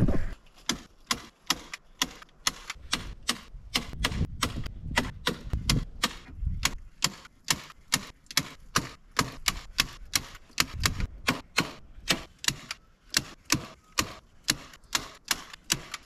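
Staple gun firing staples into tar paper along the eaves: a steady run of sharp clicks, about three a second.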